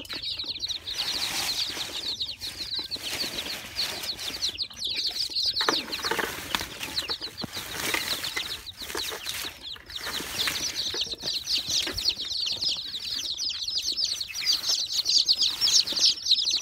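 A brood of young chicks peeping nonstop, many quick high peeps overlapping, louder near the end. Rustling and light knocks of handling around the crate come and go in between.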